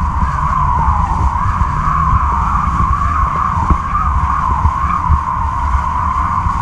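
Wind buffeting a camera mounted on a kiteboarding kite's lines: a low, uneven rumble with a steady, slightly wavering whine over it.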